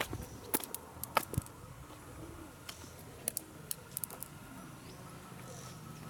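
Irregular sharp clicks and taps, about a dozen, most of them in the first four seconds, over a faint steady background.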